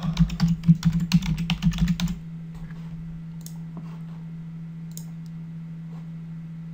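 Computer keyboard being typed on in a quick run of keystrokes that stops about two seconds in. A steady low hum continues underneath, with a few faint clicks later on.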